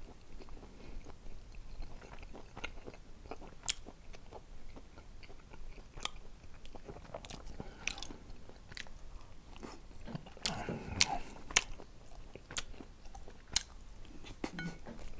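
A person chewing and biting chewy gochujang-seasoned dried squid strips, with scattered sharp clicks through the chewing.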